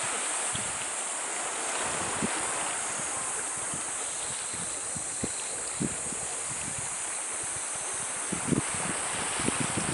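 Steady hiss of wind and sea water washing along a rocky shore, with a few short low thumps of wind on the microphone, most of them near the end.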